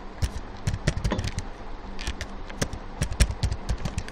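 Computer keyboard typing: an uneven run of short key clicks, several a second.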